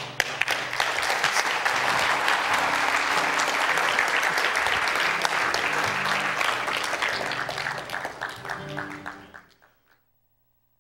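Congregation applauding, with a guitar playing held notes beneath the clapping; the sound fades out near the end.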